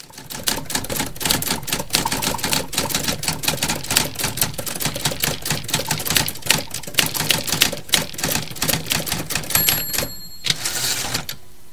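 Manual typewriter keys clacking rapidly and irregularly. Near the end a bell dings, followed by a short swish of the carriage sliding back.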